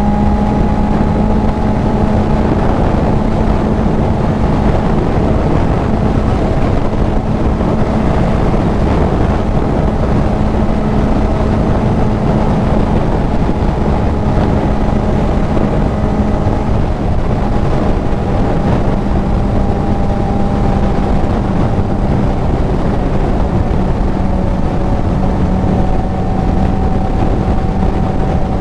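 Kawasaki Z900 inline-four engine with a CS Racing full exhaust running at a steady cruise, its pitch holding nearly constant, under heavy wind rush on a helmet-mounted microphone.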